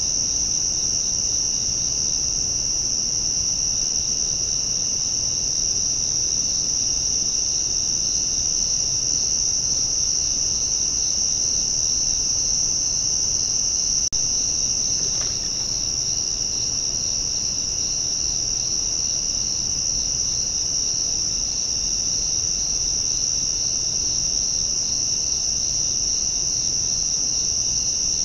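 Steady chorus of night insects, typical of crickets: a continuous high-pitched trill with a second, evenly pulsing trill beneath it.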